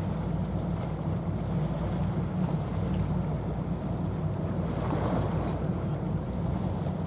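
Steady low drone of a passing container ship's diesel engine, a constant hum over a wash of wind and water noise, with a brief swell about five seconds in.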